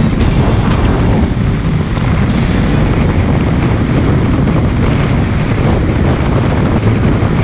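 Loud steady rumble with wind noise on the microphone.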